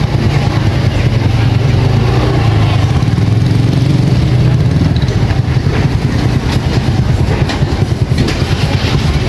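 Motorbike engine running steadily close by, a low, continuous rumble, with faint street clatter.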